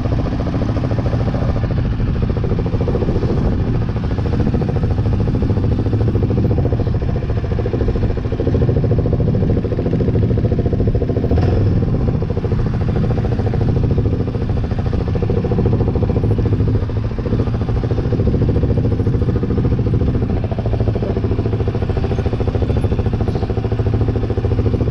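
Off-road vehicle engine running steadily while under way on a dirt trail.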